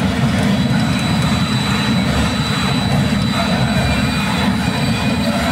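Loud, steady low rumble of machinery, with a faint high steady tone above it, unchanging throughout.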